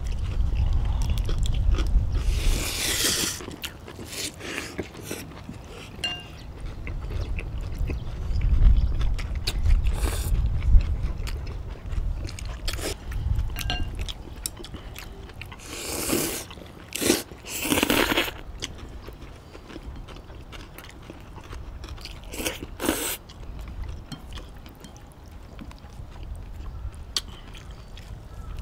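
People eating noodles and fresh kimchi: several long, noisy slurps of noodles, with chewing, crunching and small clicks between them.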